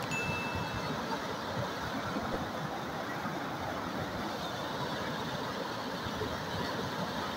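Turbulent river water rushing and churning below a barrage: a steady, even rush. Right at the start comes a click and a short high ding from a subscribe-button sound effect.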